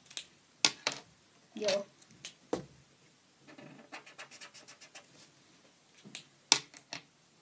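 Felt-tip pens being uncapped and capped with sharp plastic clicks, once about a second in and again near the end. In between, a felt-tip pen scratches across paper in quick colouring strokes.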